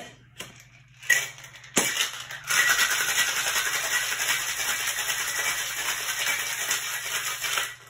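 Ice rattling in a metal cocktail shaker being shaken hard, a dense, even rattle for about five seconds that stops suddenly near the end, after a few short knocks at the start.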